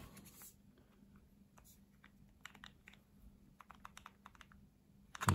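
Faint, scattered clicks and taps of a metal camera lens and 3D-printed plastic and rubber adapter parts being handled and fitted together by hand, with a louder knock near the end, over a faint steady hum.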